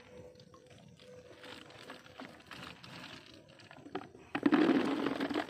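Wet mesh net rustling as it is worked over a plastic bucket, then a loud burst of rattling and splashing lasting about a second, about four seconds in, as the catch and water are shaken from the net into the bucket.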